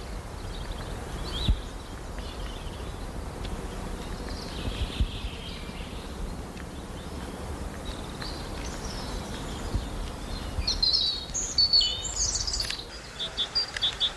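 Birds chirping over a steady low background rumble, the chirps coming thicker and louder near the end.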